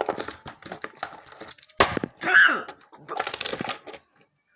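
Small toy car clattering and clicking on a hard surface as it is flicked, in quick runs of light taps with one sharper knock about two seconds in.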